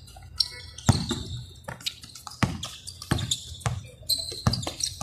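A basketball being dribbled and bouncing on the court: about eight sharp bounces at an uneven pace.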